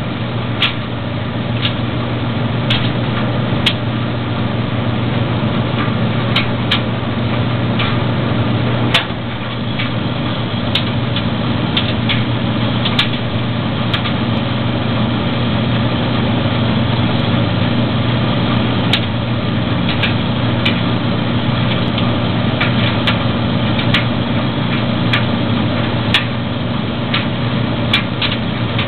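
Maytag DG608 gas dryer running: a steady low hum from the drum motor, with scattered irregular clicks and ticks, while the gas burner lights and fires to heat the drum.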